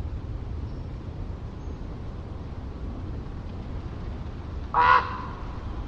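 A common raven gives one short call near the end, over a steady low rumble of distant ocean surf.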